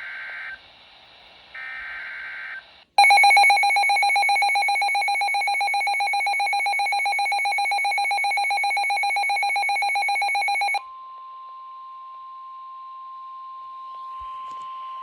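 NOAA Weather Radio Emergency Alert System tones announcing a severe thunderstorm warning. The last two short bursts of the SAME digital header come first. A loud, pulsing two-tone EAS attention signal follows for about eight seconds, then switches abruptly to a quieter, steady single-pitch warning alarm tone.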